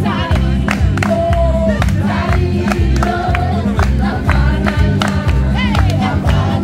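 Gospel worship music: several voices singing together over a band with a heavy bass line and a steady drum beat.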